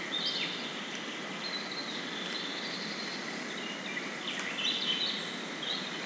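Outdoor woodland ambience: a steady hiss with several short bird calls scattered through it.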